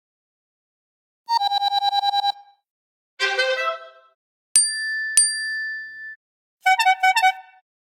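A run of iPhone alert tones played one after another, each about a second long with silence between them. First comes a fast trilling beep, then a short cluster of chime notes, then two bell-like strikes with a ringing tone, then a quick run of notes.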